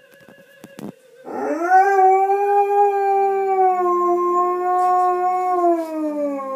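Scottish Deerhound giving one long, loud howl: it starts about a second in, rises quickly in pitch, then is held steady and slides down a little near the end.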